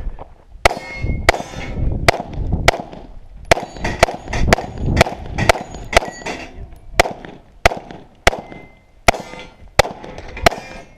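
Pistol fired in a quick string of about seventeen shots, roughly half a second to a second apart, a few of them followed by a brief metallic ringing.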